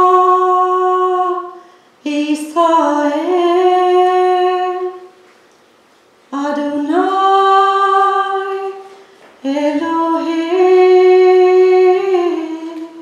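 A woman singing solo and unaccompanied into a microphone: four phrases of long held notes that slide between pitches, with short pauses between them.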